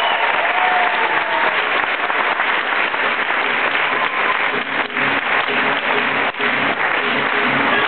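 Audience applauding steadily. About halfway through, a regular low beat of music comes in beneath the clapping.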